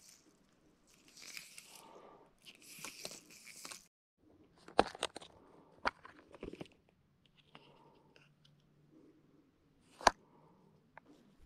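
Soft rustling, then clicks and rattles of a clear plastic compartment fly box being handled and opened, with one sharp snap near the end.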